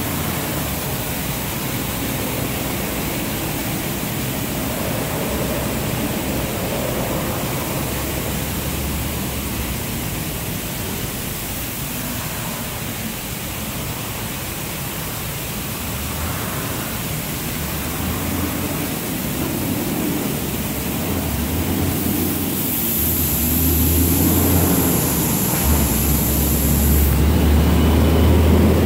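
Washworld Razor touchless car wash gantry travelling over a vehicle and spraying pre-soak, a steady hiss of spray over a low rumble that grows louder toward the end. A sharper high hiss joins for about five seconds near the end.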